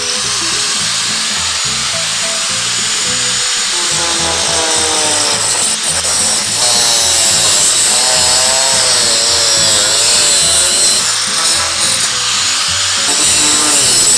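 Electric angle grinder running and cutting into a bicycle rear hub and its steel skewer, a steady high grinding hiss of abrasive disc on metal, over background music.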